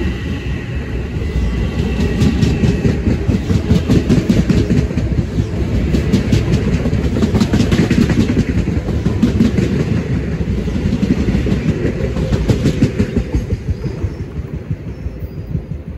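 Metro-North electric multiple-unit commuter train running past the platform, a loud rumble with rapid wheel clicks over the rail joints. A faint high whine fades out in the first few seconds, and the rumble falls away near the end as the last car clears.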